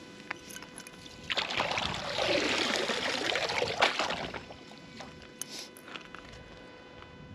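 Water splashing and sloshing for about three seconds as a rope fish stringer holding caught crappie goes into the lake, with a sharp knock near the end of the splashing.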